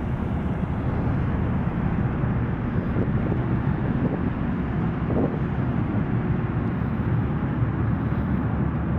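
Steady low rumble of a car ferry under way, the Howe Sound Queen's engines and water noise heard on her open car deck.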